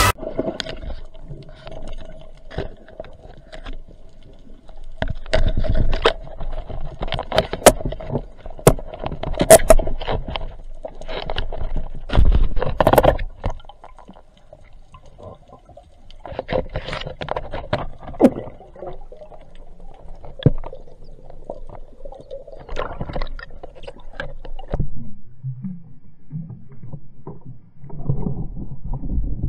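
Underwater sound picked up by a diver's camera: water noise that swells and fades irregularly, with several sharp knocks, over a faint steady hum that stops past the middle.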